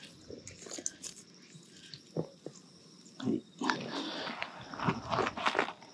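Close handling noise on a grassy bank: scattered clicks and knocks, then a louder run of rustling and crunching from about three seconds in, as a catfish hanging from a lip-grip tool and its lanyard is handled and carried.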